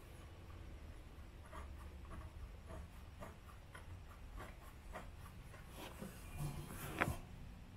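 Faint scattered metal clicks and rubbing as a banjo bolt with its crush washers is worked in by hand on an MGB's oil filter housing, with one sharper click about seven seconds in.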